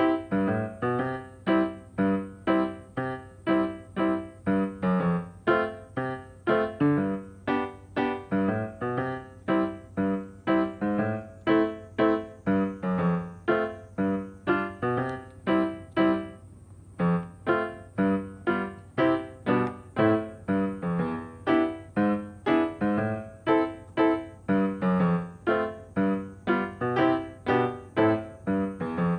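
Background music: a bouncy piano or keyboard tune with short, evenly paced notes, pausing briefly for about a second past the middle.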